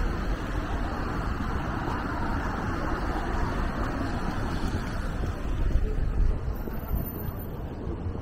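Steady rumble and hiss of city traffic on wet streets, with a louder low rumble swelling about six seconds in.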